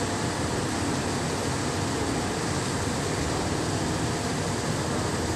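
Steady drone of heavy machinery running: an even rushing noise with faint steady hum tones underneath, unchanging, with no knocks or other distinct events.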